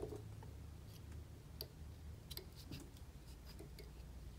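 Faint, scattered ticks of a bobbin and thread being wrapped onto a jig hook shank, over a low steady hum.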